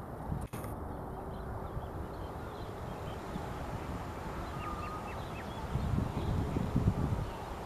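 Wind rumbling on the microphone, stronger in gusts about six seconds in, with a few faint high peeps from goslings a little before.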